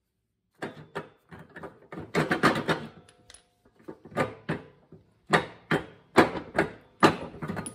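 A run of sharp metal clanks and knocks, starting about half a second in, irregular at first and then about two a second. They come from a riding-mower deck's spindle pulley being worked by hand while it is stuck on its splined shaft.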